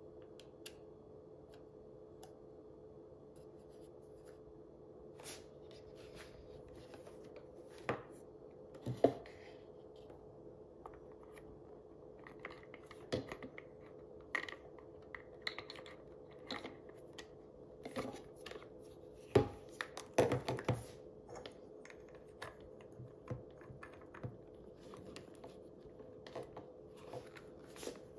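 Plastic parts of a hotCHOC spray gun being handled and fitted together: scattered clicks, taps and scrapes of hard plastic, with a cluster of louder knocks about two-thirds through, over a steady faint hum.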